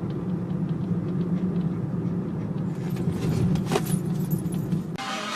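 A steady low rumble, like a vehicle running, with faint clicks and a brief squeak past the middle. It cuts off near the end, when music starts.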